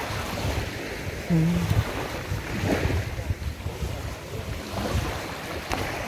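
Wind buffeting the phone's microphone over the steady wash of surf on a sandy beach. A short hummed voice sound comes about a second and a half in.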